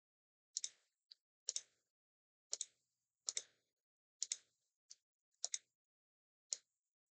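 Computer mouse clicking about nine times, roughly a second apart, many as a quick press-and-release double tick, while picking items from a drop-down menu.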